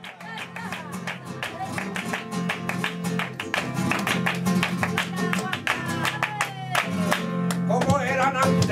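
Flamenco guitar playing the opening of a sevillanas with dense strummed chords over steady bass notes; a singer's voice comes in near the end.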